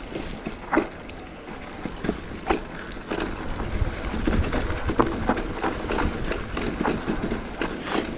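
Electric mountain bike rolling down a rough dirt and rock singletrack: tyre noise on the dirt with irregular knocks and rattles from the bike over the bumps.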